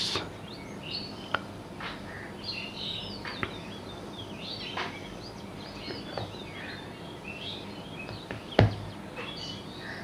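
Forest ambience of several small birds chirping and twittering over a faint background hiss, with a sharp click near the end.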